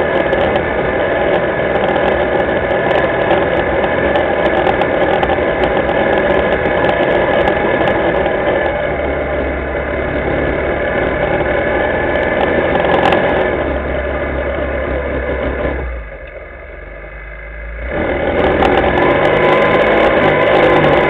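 Linhai ATV engine running steadily while the quad is ridden, heard close from the machine itself. About sixteen seconds in the engine note drops quieter for roughly two seconds, then picks back up.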